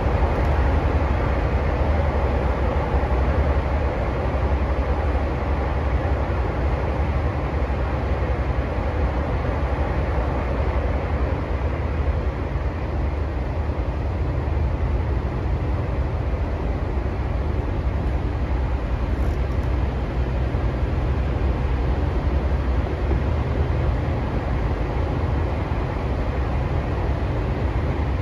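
Tokyu 3020 series electric train running at speed, heard from inside the car: a steady low rumble of wheels on rail with no rising or falling motor tone.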